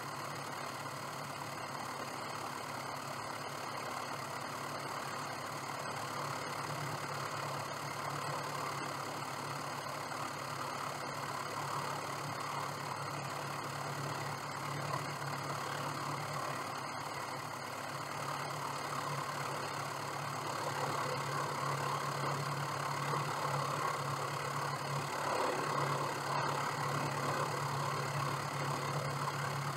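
Small plane's engine idling steadily on the ground, getting a little louder and fuller about two-thirds of the way through.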